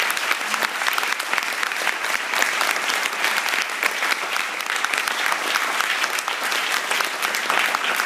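Audience applauding, many hands clapping in a steady, dense patter.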